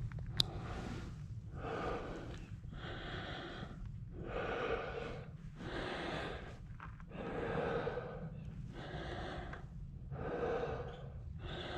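Heavy breathing of a mountain biker under hard exertion, about one deep breath a second, over a steady low rumble, with a sharp click about half a second in.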